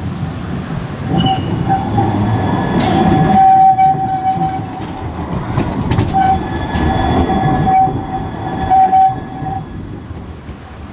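A Siemens Avenio tram passing close by, its running gear rumbling on the rails, with a steady high-pitched wheel squeal that breaks off and comes back several times for most of the pass. There are a couple of sharp clacks from the track. The sound fades as the tram goes by near the end.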